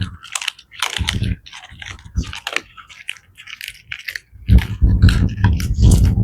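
Rottweiler crunching and chewing raw bones and meat, a chicken carcass and horse meat, close up. Sharp separate cracks come for the first few seconds, then from about halfway the chewing turns louder and continuous, with heavy wet crunching.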